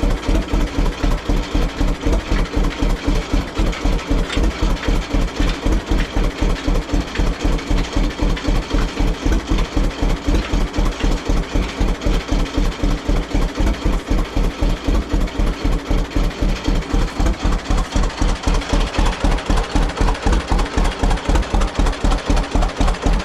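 John Deere G two-cylinder tractor engine idling with its slow, even popping beat, about four pops a second.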